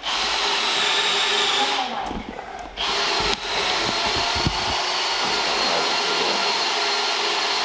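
A small electric motor with a fan running steadily, with a whining rush. It comes on suddenly, dips briefly about two seconds in, and has a few low knocks underneath.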